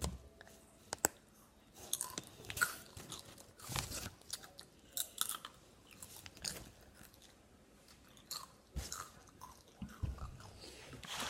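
Someone chewing crunchy chips: irregular crunches with short pauses between.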